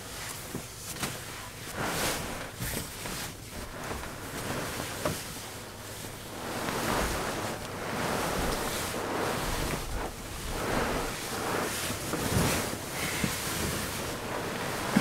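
Bed sheets and a duvet rustling close to the microphone as a bed is made up, swelling and fading with each handling of the fabric.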